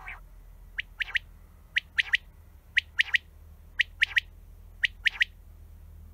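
Common quail singing its three-note 'wet-my-lips' song: five quick phrases of sharp, whistled notes, about one phrase a second, after a husky note at the very start.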